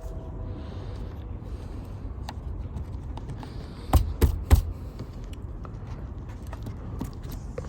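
Seatbelt and trim parts being handled, with three sharp clicks or knocks in quick succession about four seconds in and a few lighter ticks, over a steady low rumble.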